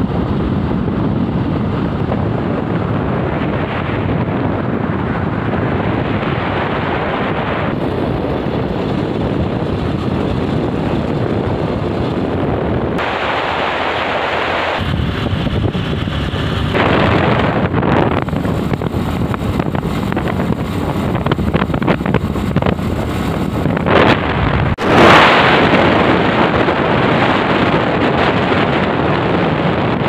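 Wind rushing and buffeting over the microphone of a motorcycle riding at speed on an open road, with vehicle noise under it. The buffeting shifts abruptly several times and peaks in a loud gust about 25 seconds in.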